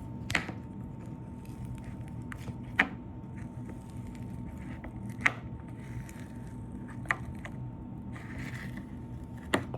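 Glittery slime being worked by hand: sharp sticky clicks and pops about every two and a half seconds, with faint crackling and scraping between.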